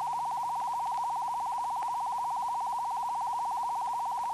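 A steady electronic tone at one mid-high pitch, pulsing in a fast, even warble and holding the same level throughout.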